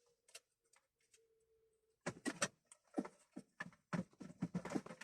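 Car radio wiring connectors and harness being handled: a few isolated clicks, then a dense run of quick plastic clicks and rattles from about two seconds in. A faint steady hum sounds during the first two seconds.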